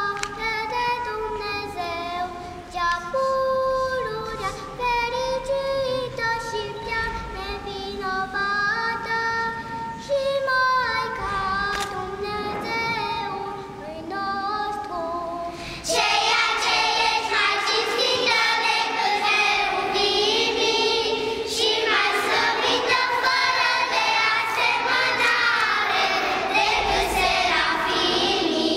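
A boy sings a solo melody; about halfway through, a children's choir joins in and the singing grows louder and fuller.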